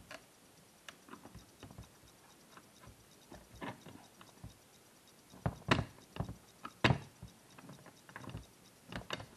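Scattered small metal clicks and taps of pliers and a screwdriver working in the gear mechanism of a power seat track, with two louder clicks a little past halfway.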